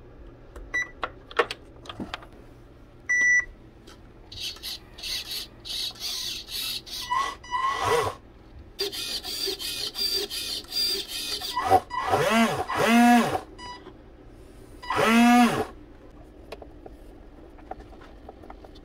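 RC boat's electronic speed controller beeping as the battery is connected, then the electric drive motor whirring in short bursts and revving up and back down several times as the throttle is tested.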